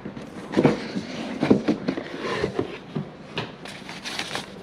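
Rigid cardboard gift box being opened by hand: the lid is pulled off and the padded insert inside is handled, giving irregular scrapes and soft knocks.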